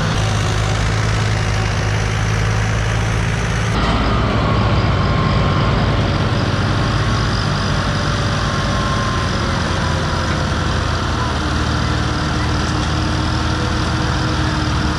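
Two farm tractors' diesel engines running hard under heavy load in tandem, pulling a trolley of sugarcane stuck in a field.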